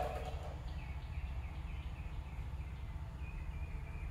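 Faint short bird chirps repeating over a low, steady background hum.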